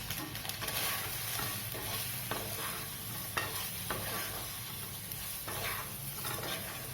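Steamed poha-vegetable dumplings being stirred in hot oil in a kadai: a steady sizzle with short spatula strokes against the pan about once or twice a second.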